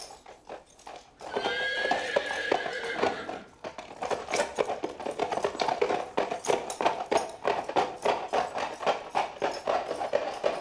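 A horse whinnies, a cry rising and falling for about two seconds, then its hooves clatter on cobblestones in a steady run of hoofbeats for the rest of the time.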